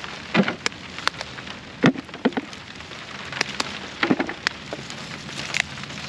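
Steady rain falling on a field of pepper plants, with scattered sharp snaps and knocks as hot cherry peppers are picked by hand and dropped into a plastic basket.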